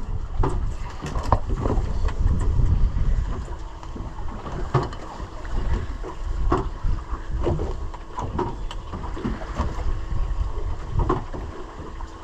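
Wind buffeting the microphone on a small boat in choppy water, with a heavy low rumble and scattered knocks and slaps, likely waves against the hull.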